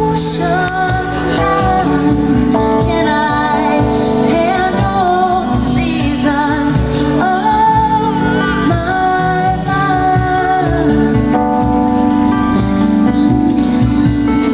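A woman singing a slow melody with a live band, strummed acoustic guitar and keyboard backing her.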